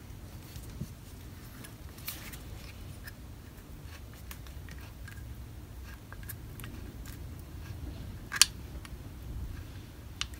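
Faint clicks and light knocks from a restored Austin 1300 swinging-yoke brake caliper being handled and turned over in the hands, with one sharp click about eight seconds in. A low steady rumble runs underneath.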